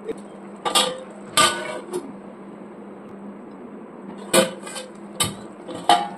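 Steel lid clanking against a steel kadai as it is set on and lifted off, with sharp metallic clangs that ring briefly: two about a second in, then a quicker run of four near the end.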